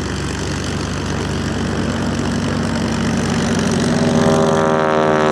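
Boeing Stearman biplanes' radial engines and propellers droning steadily. About four seconds in the engine note comes through louder and clearer as the aircraft draws closer.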